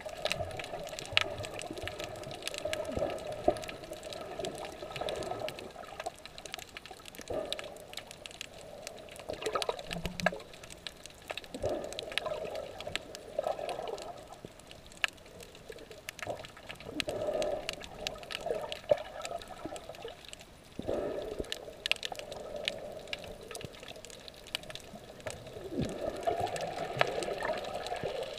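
Muffled sloshing and washing of water around a camera held underwater, swelling and fading every second or two, with scattered sharp clicks throughout.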